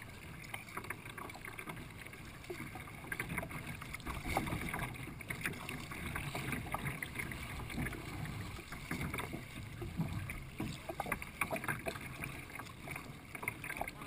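Water lapping and splashing irregularly against a kayak's hull as it is paddled through light chop, with paddle splashes.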